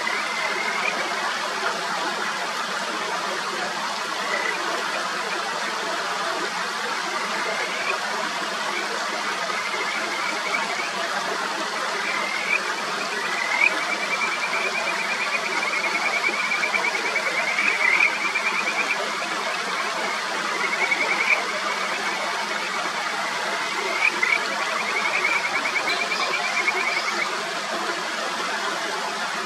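Kajika frogs (Buergeria buergeri) calling over the steady rush of a mountain stream: a run of short rising whistled notes, one of them stretching into a long trill in the middle.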